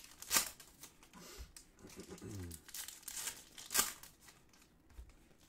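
Plastic trading-card pack wrappers crinkling and tearing as packs are ripped open, with two sharp loud rips, one about half a second in and one near four seconds.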